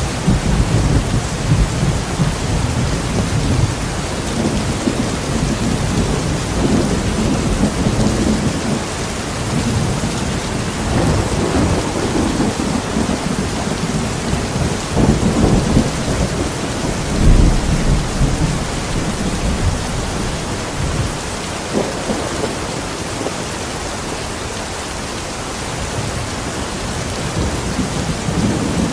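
Steady rain, with thunder rumbling low underneath that swells and fades several times, strongest around the middle and easing off near the end.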